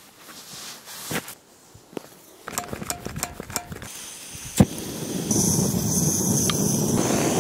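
Small handling clicks and ticks, then a sharp click a little past the midpoint. A liquid-fuel backpacking stove then burns with a steady hiss that grows stronger about a second later.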